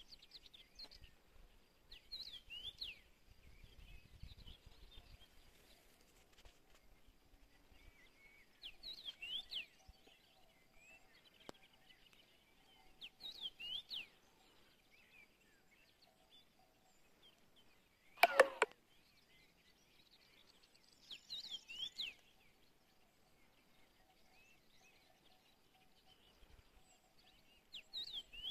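A songbird singing short phrases of quick, high sweeping notes, repeated every four or five seconds. A single sharp click about eighteen seconds in is the loudest sound.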